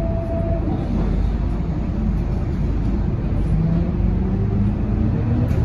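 Scania K230UB city bus's nine-litre five-cylinder diesel and drivetrain running, heard from inside the passenger cabin as a steady low drone. A high whine cuts off about half a second in, and near the end the engine tones start climbing in pitch as the bus picks up speed.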